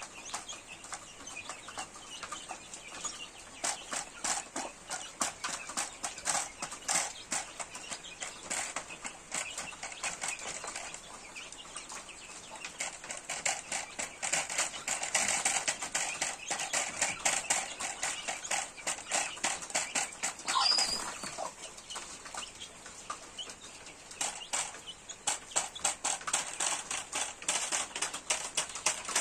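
Chickens pecking grain from feed trays: a fast, irregular patter of beak taps. There is one short high call about two-thirds of the way through.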